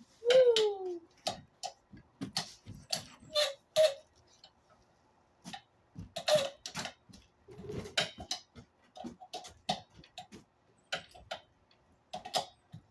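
Irregular metal clicks and taps of a wrench working on a new brass valve fitting on an air compressor, with a short falling squeal just after the start.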